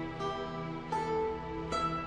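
Soft instrumental background music: a slow melody of single notes starting about every three-quarters of a second over a held bass line.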